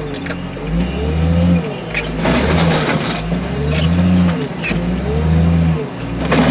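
Heavy hydraulic machine's engine working under load, its pitch rising and falling in repeated swells about every second as the hydraulics are worked. Several sharp metal knocks sound over it.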